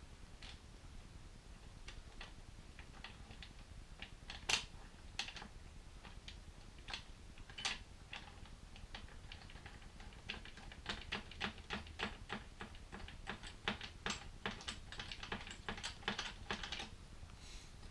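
Light metallic clicks and taps of bolts and a hand tool as pannier rack brackets are bolted on. The clicks are scattered at first, then come in a quick, uneven run over the last several seconds.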